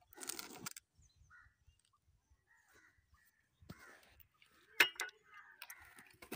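A split log being wrenched apart by hand: wood cracking and scraping in bursts, with a sharp wooden knock about five seconds in. Crows caw in the background.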